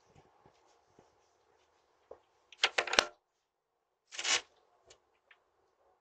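Rustling and clicking handling noises picked up by a doorbell camera's microphone. A dense cluster of rustles and clicks comes about two and a half seconds in, and a short rush of noise follows about a second later.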